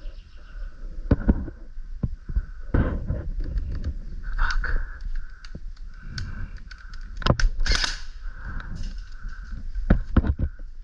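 Airsoft guns firing irregular sharp pops, some in quick pairs and clusters, with short bursts of rustling in between.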